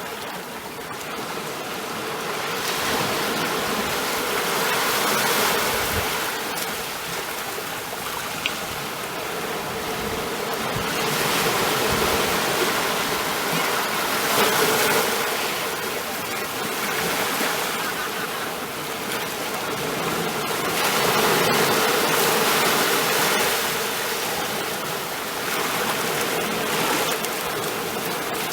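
Ocean surf: waves breaking and washing in as a continuous rush that swells and eases again every several seconds.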